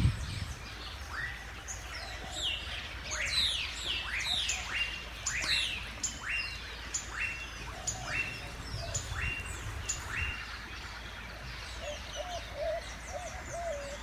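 Wild birds calling: a run of sharp upward-sweeping chirps, about two a second, then lower wavering notes repeated near the end.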